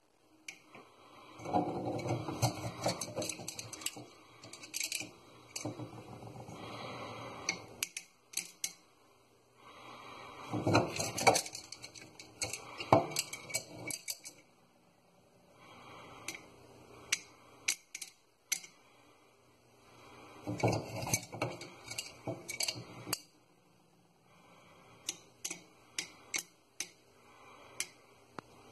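Small round hard-coated candies rattling and pouring between two clear cups, with clicks of the cups against a stainless steel sink. The clatter comes in several bursts of a few seconds each with short lulls between them.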